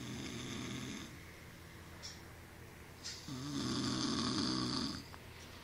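A man snoring in his sleep: one snore ending about a second in, then a longer, louder snore starting about three seconds in.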